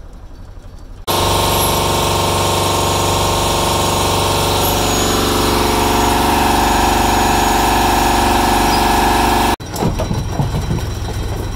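Fishing boat's engine running loud and steady. It starts suddenly about a second in and cuts off abruptly shortly before the end, with a quieter low rumble before it.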